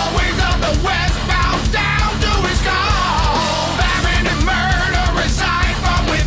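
Rock music soundtrack: a heavy rock band with driving drums, distorted guitar and a wavering melodic line, possibly sung.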